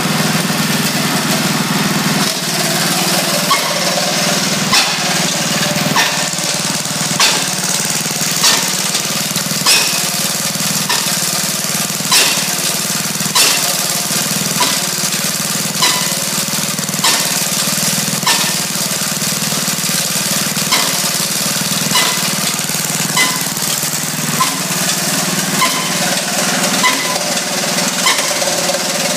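Homemade auto-feed wood chunker running: its small engine runs steadily while the spinning blade wheel chops the wood, giving a sharp chop about every second and a quarter.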